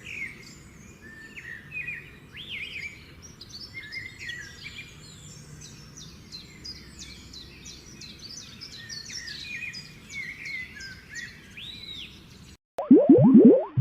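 Several birds singing together, a busy mix of short chirps, trills and whistles over a low background hiss. Near the end the birdsong cuts off, and a loud, different sound follows: quick rising boing-like sweeps, repeated several times.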